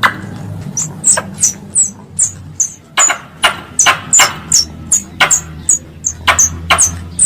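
Wild squirrel calling: a rapid series of sharp, high chirps, about three a second, each dropping slightly in pitch. It is a recorded squirrel call played as a lure.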